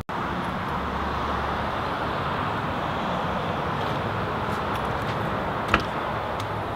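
Steady road and traffic noise, with one short click near the end.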